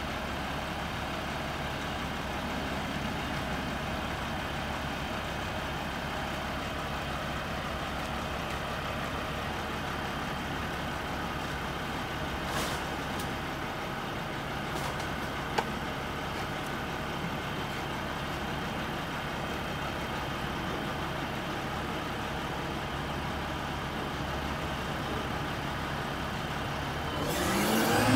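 Mack front-loader garbage truck's diesel engine idling steadily. Near the end the engine revs up with a rising whine, as the hydraulics start to lift the Curotto-Can arm.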